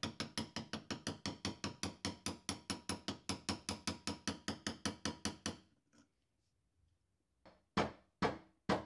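Rapid, even light taps, about five a second for some five seconds, gently driving a slip ring onto the grooved rotor shaft of a Bosch alternator. After a pause, three louder single knocks near the end.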